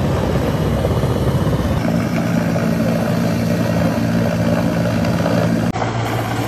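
Military helicopter hovering low overhead: a steady low rotor and engine drone over a dense background rush, briefly broken about five and a half seconds in.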